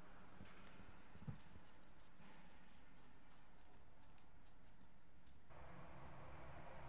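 Faint scratching of a POSCA paint marker's nib stroking across sketchbook paper, with a short soft knock about a second in. About five and a half seconds in, a steady low background hum comes in under the strokes.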